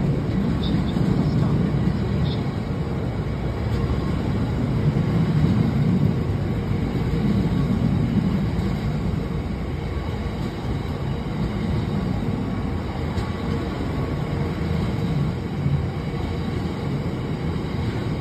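Drax biomass hopper wagons of a freight train rolling past, a steady low rumble of wheels on the rails.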